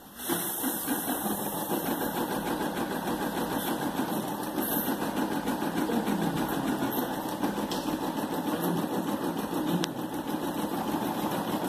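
Brother PE460LDV embroidery machine starting up and stitching steadily, its needle running at a fast, even rate. It is resuming after its automatic thread trim between the separately coloured letters of the design.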